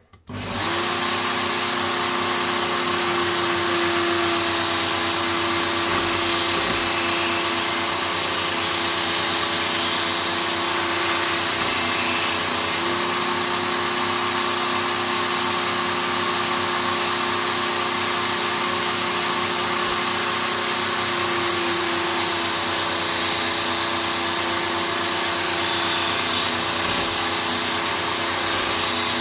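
Work Sharp Ken Onion Edition belt sharpener with the blade grinding attachment switched on and running steadily, its abrasive belt grinding the edge of a Gränsfors Bruks Scandinavian Forest Axe. The motor starts just as the sound begins and keeps up an even whir with a steady hum and a hiss.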